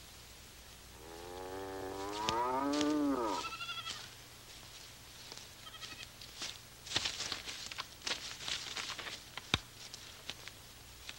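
A calf bawling: one long call that rises and then falls in pitch, starting about a second in, then a short higher cry. Scattered knocks and scuffling follow.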